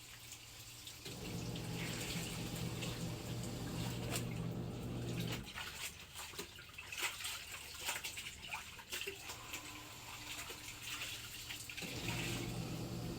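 Water running from a tap into a basin while laundry is rinsed by hand, with splashing and sloshing of the wet clothes. The steady flow stops about five seconds in, leaving only the sloshing, and starts again near the end.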